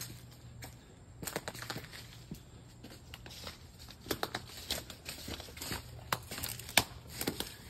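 Leaves and twigs of fallen tree branches rustling and crackling as someone pushes through them, with irregular small snaps and one sharper crack near the end.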